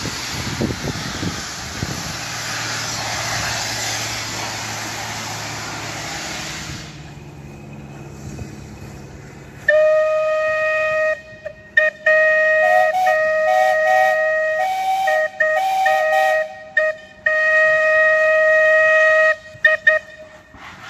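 Steam locomotive hissing loudly as steam blows off, easing after about seven seconds. From about ten seconds in, a locomotive whistle sounds a steady chord in several blasts, the longest lasting about seven seconds, with short toots near the end.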